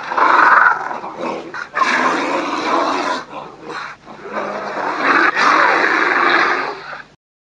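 Angry creature growl sound effect: loud, harsh growling in three long stretches that cuts off abruptly about seven seconds in.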